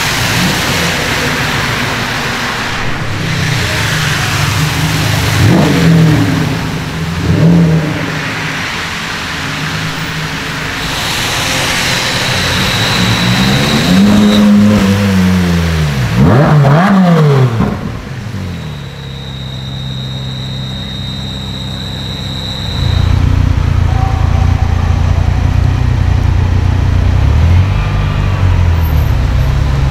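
Supercar engines revving and accelerating past on a wet street, with a steady hiss of rain and tyres. Several rising-and-falling rev sweeps in the first half, a thin high whine twice, and from about three quarters of the way in a loud deep steady engine rumble.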